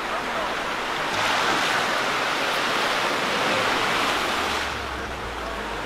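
Ocean surf washing up a beach: waves breaking and foam rushing over the sand, swelling about a second in and easing off near the end.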